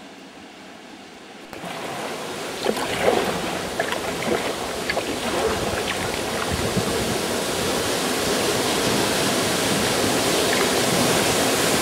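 Small waterfall pouring into a sea gully, its rushing splash growing steadily louder as a kayak paddles up towards it, with a few sharp splashes and drips of water close by a few seconds in. The first second and a half is only a faint hiss.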